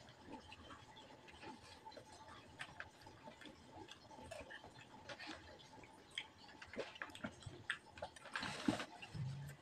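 Faint, irregular clicks and taps of an eating utensil against a bowl and plate, with a brief rustle near the end.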